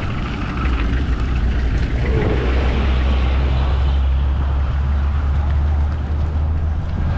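Road traffic: a steady low rumble of passing vehicles with road noise.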